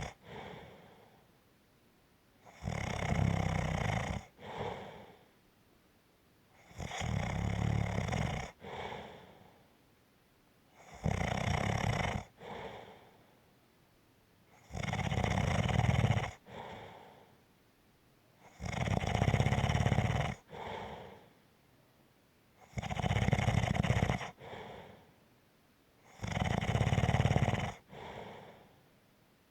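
Snoring with a light rumble, in a steady breathing rhythm of about one snore every four seconds. Each long rumbling snore is followed by a shorter, softer one, then a brief quiet.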